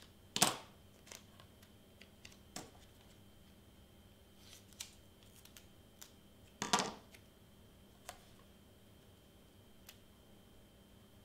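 Scissors snipping through a thick piece of double-sided tape: one sharp snip about half a second in and another about two-thirds of the way through, with a few faint clicks between.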